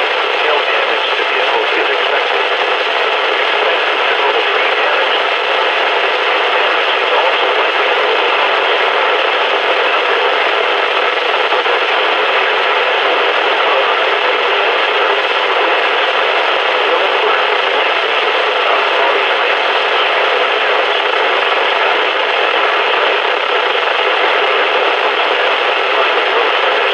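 Steady radio static hissing from a weather radio's speaker, with no voice coming through on the channel.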